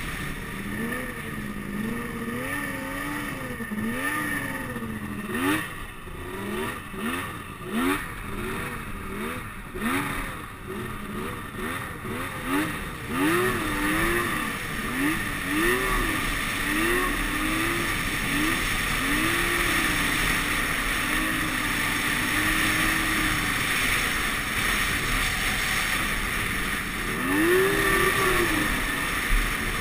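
Snowmobile engine under way, its pitch rising and falling over and over as the throttle is opened and backed off, with a few sharp knocks and rattles over the middle stretch. Later it holds a steadier pitch for a while before revving up again near the end.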